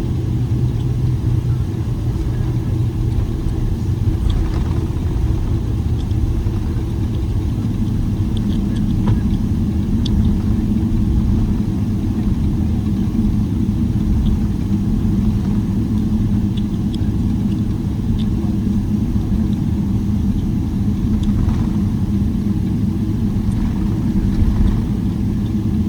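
Steady low rumble inside the cabin of a Boeing 777-300ER, its GE90 engines running at low taxi power with no build-up of thrust, with a few faint rattles and ticks.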